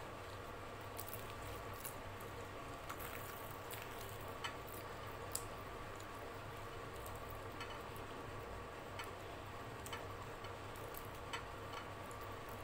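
Close-miked eating sounds: irregular small clicks and crackles as luchi is torn apart by hand, mopped through the curry and chewed, over a faint steady hum.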